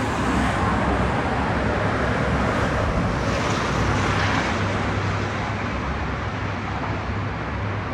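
Steady road traffic noise, a rush of passing cars that swells about three to four seconds in.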